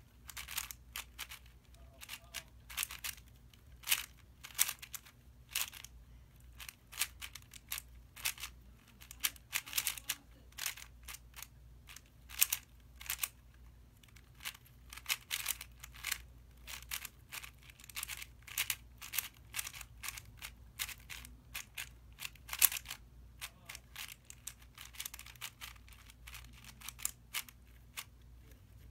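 YJ MGC 4x4 speedcube being turned fast by hand: a dense, irregular run of plastic clicks and clacks as the layers snap round.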